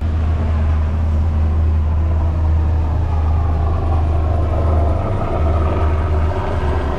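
Outboard motor of a small runabout boat running steadily under way: a loud, even low drone with a rushing noise over it.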